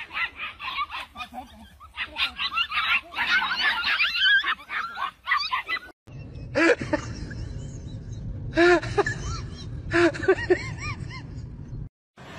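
A pack of puppies yapping and yelping over one another, many short high calls overlapping, for about six seconds. It cuts off suddenly to a low rumble with a few short rising-and-falling calls in quick groups.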